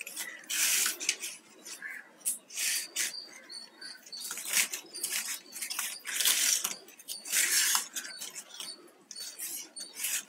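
Flat plastic weaving wire rustling and scraping as it is pulled and tucked through the knots of a woven cup, in irregular bursts with short squeaks of plastic rubbing on plastic.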